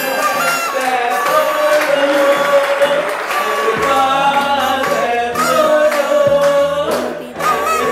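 Music with singing: a sung melody over a steady bass line.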